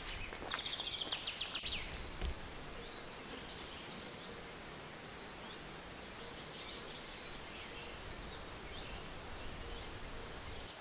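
Summer countryside ambience: a bird's rapid trill in the first second or so, then high-pitched insect buzzing that comes and goes, with a few faint bird chirps.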